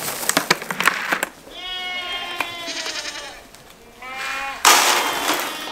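Goat bleating: one long call, then a shorter one about four seconds in. Dry feed rattles as it is poured from a plastic bucket at the start, and again, loudest, near the end.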